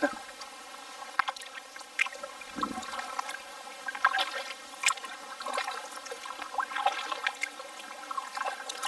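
Kayak paddle strokes in calm water: the blades dip in and water splashes and trickles off them, a short splash every second or so.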